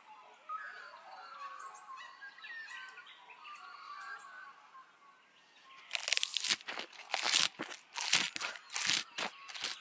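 Faint bird chirps, then from about six seconds in a string of loud crunches of dry plant litter, about three a second, as in grazing or chewing on pine needles and twigs.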